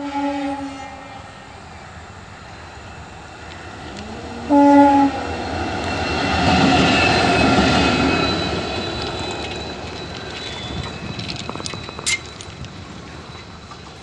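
Diesel locomotive running light: its multi-tone air horn sounds two short blasts, the second about four and a half seconds after the first, then the locomotive passes close with engine and wheel noise that swells and fades. A single sharp click comes near the end.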